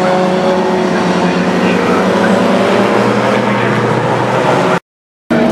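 Engines of a pack of classic racing saloons and sports cars running hard through a corner, several engine notes overlapping and gliding in pitch. The sound cuts out completely for about half a second near the end.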